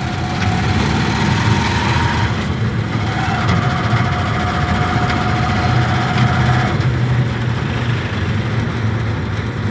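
Motor tricycle's small motorcycle engine running in a steady low drone with a faint whine, heard from the sidecar while riding in traffic.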